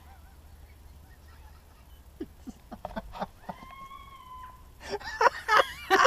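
Coyotes yipping and howling in answer to a police siren: a few short falling yips a couple of seconds in, one held howl with a rising start, then a burst of high, wavering yips and howls near the end.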